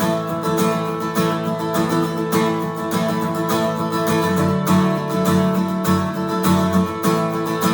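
Acoustic guitar strummed steadily in a regular rhythm, an instrumental break between sung verses of a children's worship song.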